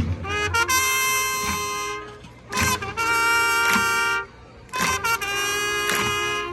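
Band brass, trumpets among them, playing three long held chords separated by short breaks.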